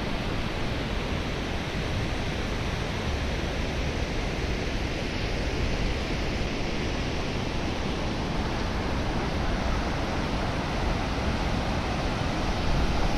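Steady, unbroken rushing of water, even and unchanging throughout.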